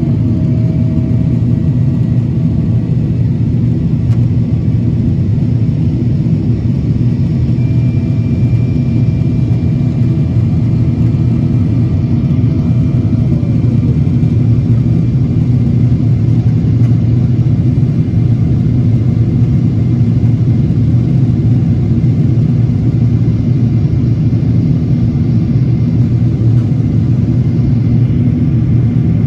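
Steady low roar inside the cabin of a Boeing 777-200ER in flight, from the engines and the airflow over the fuselage. A faint whine slides down a little about halfway through.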